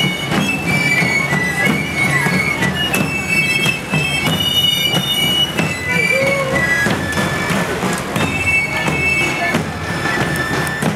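A band of Provençal galoubets (three-hole pipes) and tambourins (long tabor drums) playing while marching: the pipes play a high melody in unison over steady, regular drum beats.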